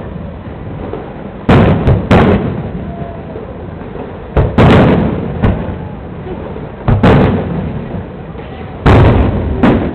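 Aerial fireworks shells bursting overhead: about nine loud booms, several in quick pairs, each trailing off in a rolling echo.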